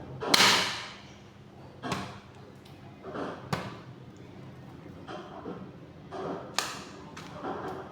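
A ceiling fan being smashed: a series of hard crashing impacts, the loudest about half a second in with a long ringing tail, then single knocks every second or two.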